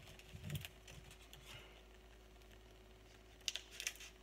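Faint clicking and crinkling of a foil Pokémon booster pack being cut open: a few light clicks with a soft thud about half a second in, then a quick cluster of sharp clicks near the end.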